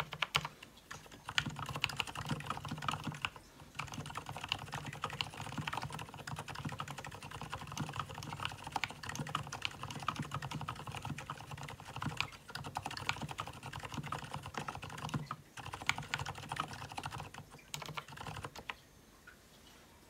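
Typing on an Mstone Groove T87A tenkeyless mechanical keyboard fitted with tuned Gateron silent brown switches: a fast, continuous run of keystrokes with a few brief pauses, stopping shortly before the end.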